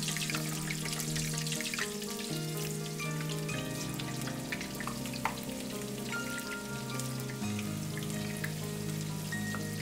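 Banana slices deep-frying in hot oil in a wok: a dense, steady crackling sizzle, with background music holding low notes underneath.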